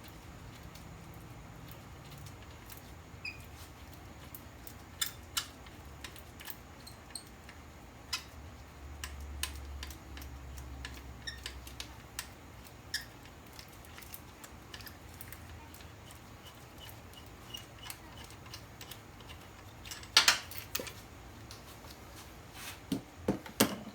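Hand tools working bolts loose in a car engine bay: scattered light metallic clicks and taps, a short run of quick even ticks in the middle, and a louder clatter of metal knocks about twenty seconds in and again near the end, over a low steady hum.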